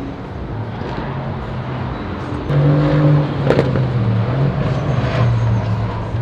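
Mercedes-AMG safety car's twin-turbo V8 running past at a steady low drone, growing louder about two and a half seconds in.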